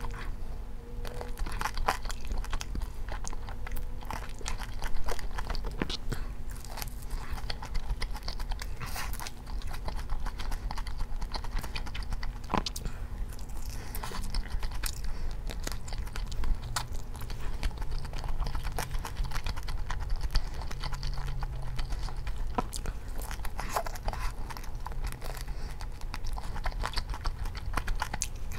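Close-miked crunching and chewing of crispy fried chicken: repeated irregular crackles as teeth bite into the fried skin, over a low steady hum.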